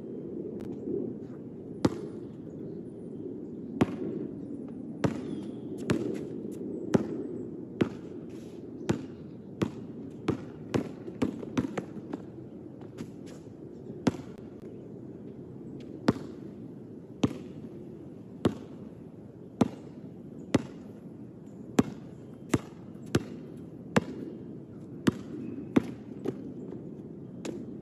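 Basketball bouncing on an outdoor hard court as a player dribbles: sharp single bounces about once a second, with quicker runs of bounces now and then, over a steady low background noise.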